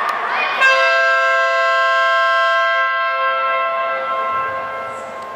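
A long, steady horn blast that swoops up into pitch and holds one note for about three seconds before fading away, over the tail of crowd noise and applause.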